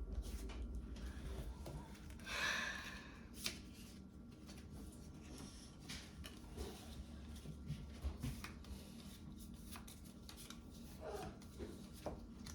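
Faint handling of Pokémon trading cards: cards sliding and tapping against each other, with a louder rustle about two seconds in and a few light clicks.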